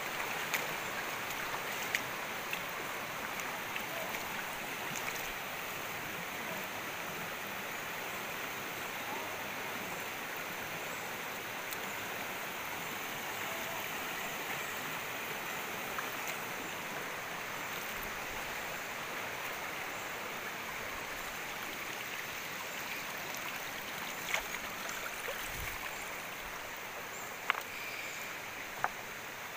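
A shallow, rocky river flowing over stones: a steady rush of water, with a few sharp clicks here and there.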